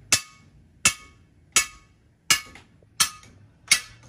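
Hand hammer striking metal on an anvil in a steady rhythm: six ringing blows, about one every three-quarters of a second.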